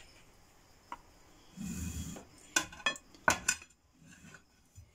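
China plates and cutlery handled and set down: a short scuff, then a few sharp clinks, the loudest about two and a half and three and a half seconds in.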